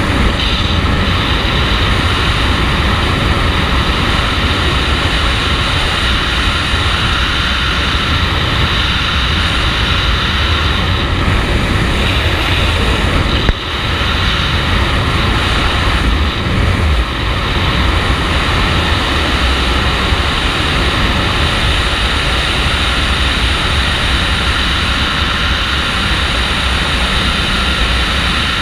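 Loud, steady rush of wind over a wingsuit pilot's on-body camera microphone in full flight, with one brief dip about halfway through.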